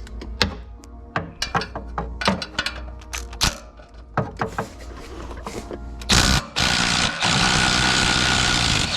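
Metal clicks and knocks of tools on the exhaust, then about six seconds in an impact wrench hammers briefly, and after a short pause runs steadily for about two seconds, loosening a header collector bolt.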